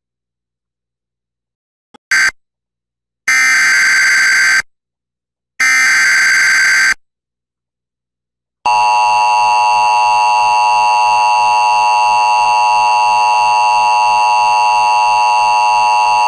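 Emergency Alert System tones: a brief blip and two shrill data bursts of about a second each (the SAME header), then about eight seconds of the steady, harsh two-tone attention signal that announces a new alert.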